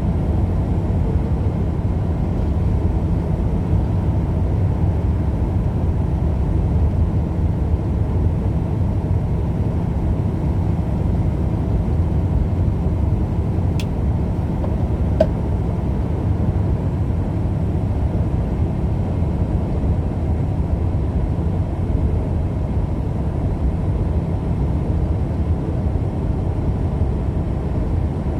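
Steady road and engine rumble of a car driving at speed, heard from inside the cabin. Two faint short clicks about halfway through.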